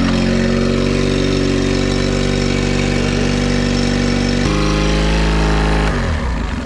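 2005 Mercury 8 hp four-stroke outboard running steadily just after a cold start with the choke pulled out, warming up. Its note changes abruptly about four and a half seconds in, and its level drops a little near the end.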